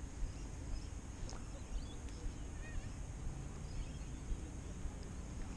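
Quiet outdoor ambience: a low steady rumble with a few faint, scattered bird chirps.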